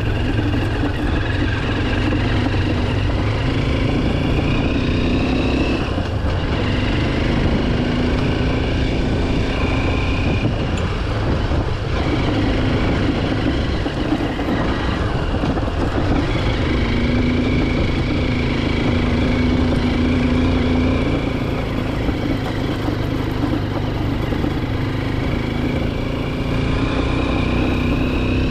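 Honda XR150L's single-cylinder four-stroke engine running under way on the bike, its pitch climbing slowly and falling back several times as the rider accelerates and lets off.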